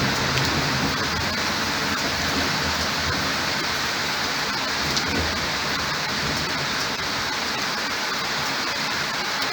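Heavy, steady rain of a thunderstorm falling on a surface, with the low rumble of thunder dying away in the first second and a brief low swell again around five seconds in.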